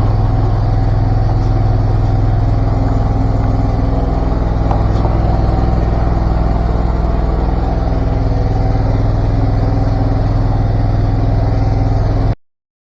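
Engine-driven high-pressure drain-jetting machine running steadily at a constant speed, a loud, even low hum with no change in pitch. It cuts off abruptly near the end.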